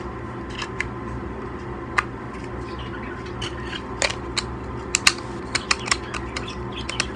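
Small plastic clicks and taps as a battery is fitted into a Huawei pocket mobile Wi-Fi router by hand: irregular clicks throughout, the sharpest ones about five seconds in.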